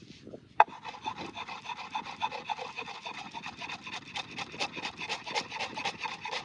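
A sharp click, then quick, even rasping strokes, about five a second, with a faint ringing edge: a tool being worked back and forth against something.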